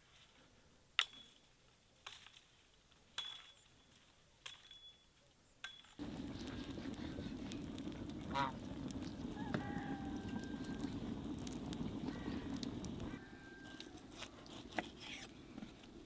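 Sharp single knocks about once a second, then a wood fire burning steadily with geese honking a few times, and finally a quieter stretch with small clicks.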